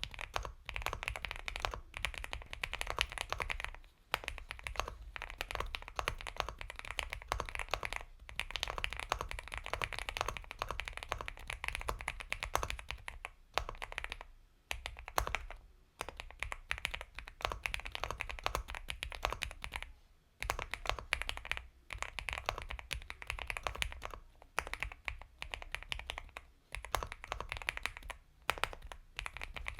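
Continuous fast typing on a mechanical keyboard with Gateron Milky Yellow Pro linear switches, a rapid run of soft keystrokes broken by a few brief pauses.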